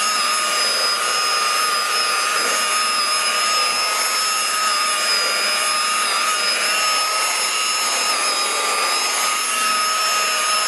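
Electric buffer polishing a boat's gel-coat and dash surfaces, running at a steady speed with a constant high whine over a hiss.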